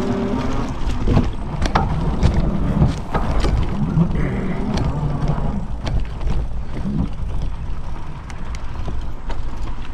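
Fat-tire Himiway e-bike riding over a rough, soft sandy trail: a steady rumble of wind and tyres on the mount, with frequent knocks and rattles as it bounces over ruts.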